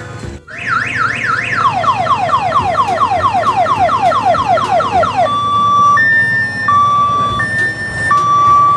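Electronic multi-tone siren of an odong-odong mini tourist train, sounding loud. It gives a few quick rising whoops, then a run of falling sweeps about three a second, then a two-tone high-low call switching back and forth about every two-thirds of a second. Underneath is the low running of the train's diesel engine.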